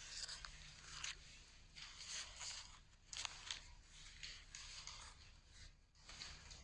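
Faint rustling and crinkling of paper sheets being handled and shuffled, in irregular bursts with a few small clicks.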